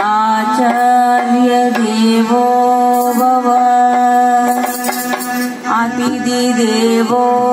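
A woman singing a Hindu devotional song to Ganesha (a bhajan) into a microphone, in long held notes that slide between pitches.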